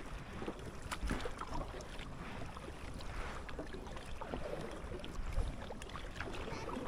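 Kayak paddle dipping and splashing in lake water, a few strokes with water swishing and dripping, over a low rumble.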